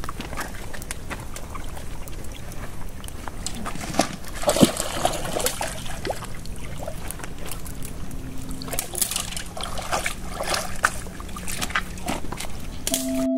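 Small waves lapping and trickling at a pebble shore, with scattered crunches and clicks of pebbles and sticks underfoot and being handled.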